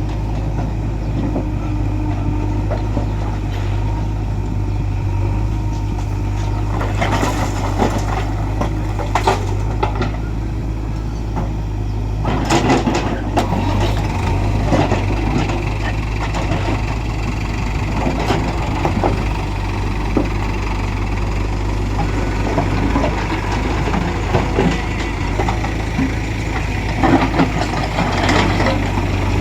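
Diesel engine of a JCB 3DX backhoe loader running steadily, with a constant low hum. Several sharp clattering knocks come through it, about a third of the way in, in a cluster a little before the middle, and again near the end.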